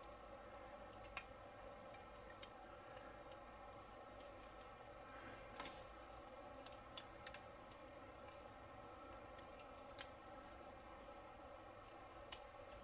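About a dozen faint, irregular small clicks and ticks as a scale-model wire-spoke wheel is pressed and turned in the fingers, its parts and loose spoke pins clicking against one another while the wheel is snapped together.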